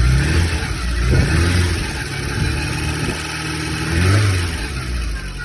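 Porsche 924's four-cylinder engine blipped up from idle several times and dropping back, the largest rev about four seconds in. A whine runs with it, which the owner says all 924s have.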